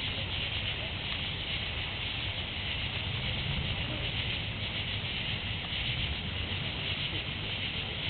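Steady outdoor hiss with a low, fluctuating rumble underneath; no siren tone stands out.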